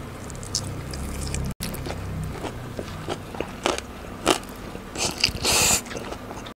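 Close-miked mukbang eating sounds: biting into and chewing a soft bakso meatball, with wet mouth clicks and smacks and a brief louder slurp-like burst near the end.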